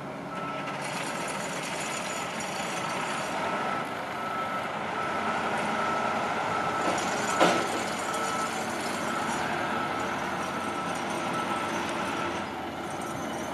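A heavy truck's engine running while a reversing alarm beeps steadily, about one beep a second. A single sharp knock about halfway through is the loudest sound.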